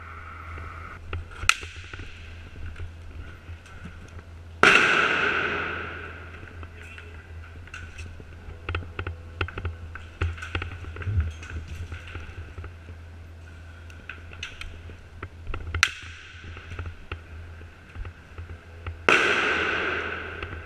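Two loud bangs, about four and a half seconds in and again near the end, each echoing for a second or more through a large empty hall, with single sharp cracks about 1.5 s and 16 s in and a spatter of small clicks and knocks in between, amid the shots of an airsoft game.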